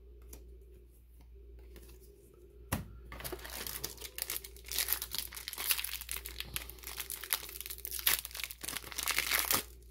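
Foil trading-card booster pack being crinkled and torn open by hand: mostly quiet for the first three seconds, then a click and dense crackling of the foil wrapper that runs until just before the end.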